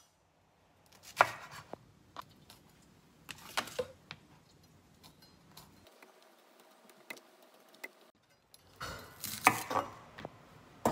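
Chef's knife chopping on a bamboo cutting board, trimming vegetables: a few separate knocks of the blade on the board, a loud one about a second in and a quick run of them near the end.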